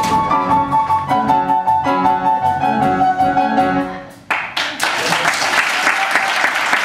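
A live piano-led pit band with a steady beat plays the closing bars of a dance number and stops abruptly about four seconds in. Audience applause breaks out right after.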